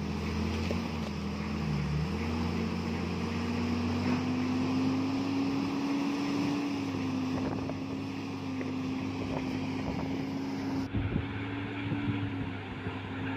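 JCB wheel loader's diesel engine running under load as it pushes a fishing boat's hull into the water. Its pitch dips briefly, then rises and holds higher, over a wash of wind and water noise. Near the end, scattered knocks come in.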